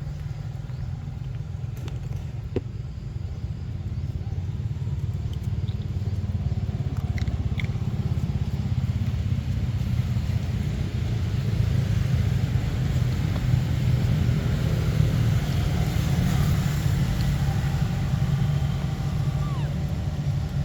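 Steady low rumble that grows a little louder about halfway through, with a few faint short high chirps and clicks over it.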